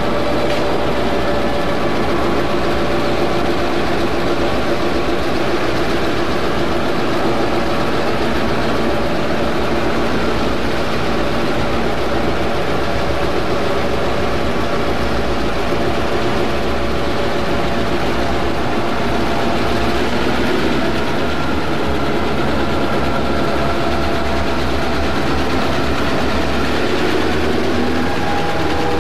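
Chicago Central diesel locomotives passing close by, their engines running loud and steady as they pull a coal train out under load.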